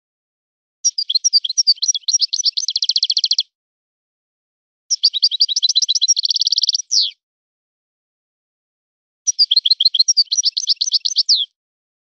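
Moroccan goldfinch (European goldfinch) singing: three quick twittering phrases of rapid high notes with silent pauses between them. The second phrase ends in a buzzy held note and a short downward slur, and the third ends on a falling note.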